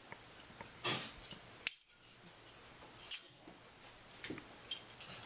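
Scattered metal clicks and clinks from a Mosin-Nagant rifle's steel bolt parts being handled as the firing pin and its spring come out of the bolt body with the bolt tool. There are about six separate clicks, the sharpest a little under two seconds in.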